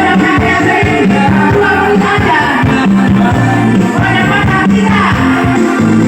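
A song with a sung vocal over a bass line and steady beat, played loud through a four-way speaker system on test.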